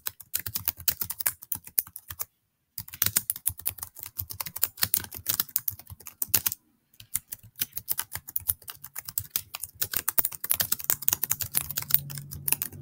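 Fast typing on a computer keyboard, many key clicks a second, stopping briefly twice.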